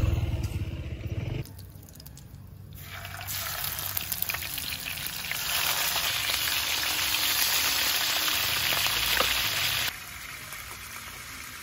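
A whole fish frying in hot oil in a pan: a steady sizzle that builds from about three seconds in and cuts off abruptly near the end. A scooter engine runs briefly at the start.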